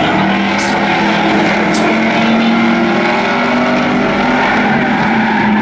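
Several demolition race cars' engines running around a paved oval, a steady drone of overlapping engine pitches rising and falling slightly as the cars pass.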